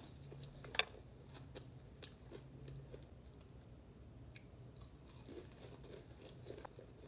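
Close-miked eating sounds: chewing and biting, with many small mouth clicks and one sharp click just under a second in, over a faint steady low hum.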